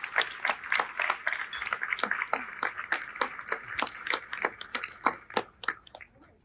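Audience applauding, a dense patter of many hands clapping that thins and dies away near the end.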